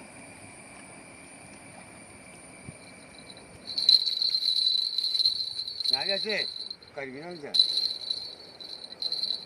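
Insects trilling, a steady high-pitched chirr that starts about four seconds in and breaks off briefly near the end, with a few short murmured words.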